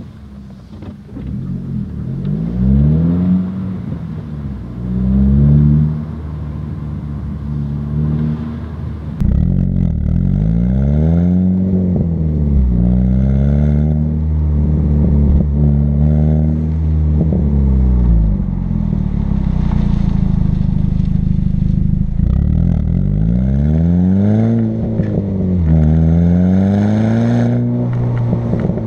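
Volkswagen GTI engine heard through a 3-inch Megan Racing catback exhaust while driving, its pitch climbing and falling again and again as the car accelerates and the revs drop. It gets louder from about nine seconds in, where it is picked up close to the exhaust tip.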